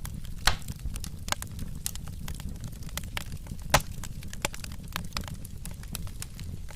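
Wood fire crackling in a fireplace: irregular sharp pops and snaps over a steady low rumble, with two louder pops about half a second in and near four seconds.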